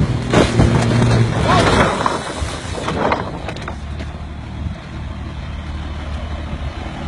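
A timber-laden truck tipping over onto its side: its engine is running, then for about three seconds there is a crash and clatter of the truck and its load of planks going down, with people shouting. After that it drops to a low rumble.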